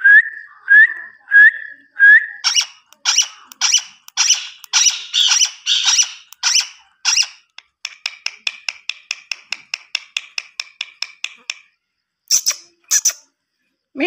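Indian ringneck parrot (adult male rose-ringed parakeet) calling: four short rising whistles, then a run of harsh squawks about two a second. Next comes a fast ticking chatter of about seven clicks a second lasting a few seconds, and two more squawks near the end.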